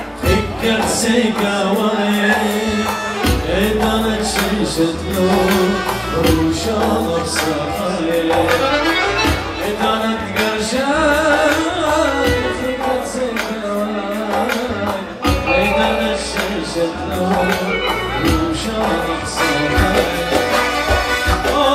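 Arabic folk music with a steady beat of drum strokes under a melody.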